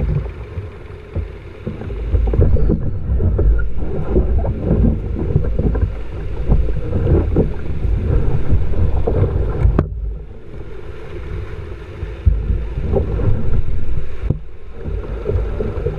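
Surf breaking and washing around a kayak in the shallows as it is landed on a sandy beach, with heavy wind buffeting on the mounted camera's microphone making a loud low rumble.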